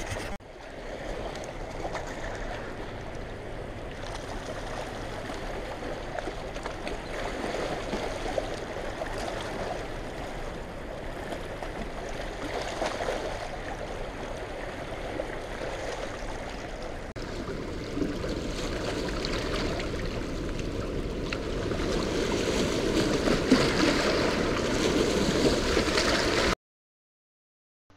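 Steady rush of churning water released through a dam into the tailrace, cutting off suddenly near the end.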